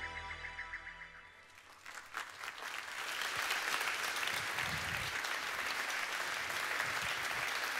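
Music fading out, then an audience applauding, starting about two seconds in and holding steady.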